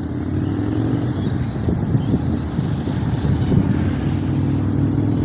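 Arrma Notorious 6S brushless electric RC stunt truck running across grass, a steady low drone that grows slightly louder.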